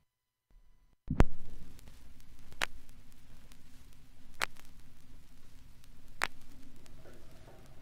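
Playback of a vinyl LP: the stylus is set down about a second in, then the lead-in groove gives surface hiss and a low hum. A sharp click comes about every 1.8 seconds, once per turn of the record at 33⅓ rpm, the mark of a scratch or defect in the disc. Faint music begins near the end.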